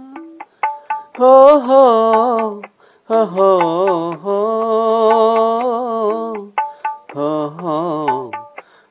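A single voice sings a slow ritual chant in long held notes that waver in pitch, in three phrases with short breaks between them.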